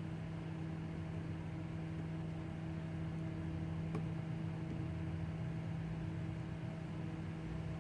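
A steady low mechanical hum, with one faint tick about halfway through.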